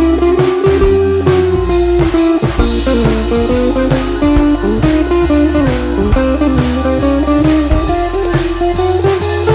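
Background music: a bluesy electric guitar melody with bending notes over bass and a steady drum beat.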